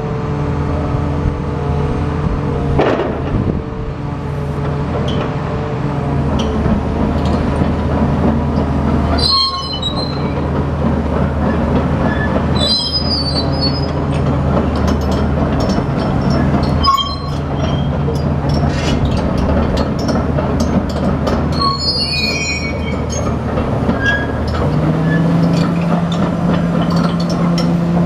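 Komatsu PC450 crawler excavator's diesel engine running steadily under hydraulic load as the boom and arm are worked. A few short, high-pitched metallic squeals come through it, about a third, halfway and three-quarters of the way through. Near the end the engine note changes to a single steadier, higher hum.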